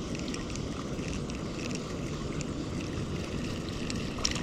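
Steady outdoor wind noise rumbling on the microphone, with a few faint clicks about four seconds in.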